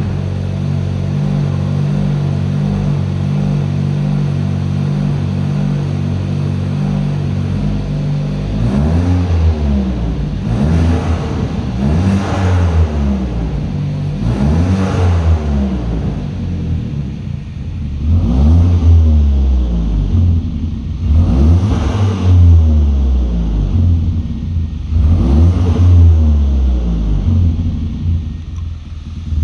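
Hyundai Avante Sport 1.6 turbo four-cylinder engine idling steadily, then revved in about seven short blips, each rising and falling in pitch, and settling back to idle near the end. It is heard through the car's stock Avante Sport exhaust.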